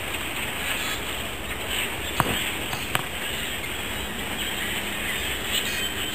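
A large flock of grackles makes a steady, dense din in the treetops, with two sharp clicks standing out about two and three seconds in.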